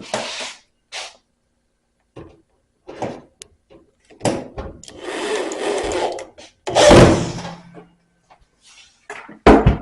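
Power drill driving screws into the dryer's sheet-metal front panel: two short runs of the motor a little past the middle, the second the loudest, among light knocks of handling.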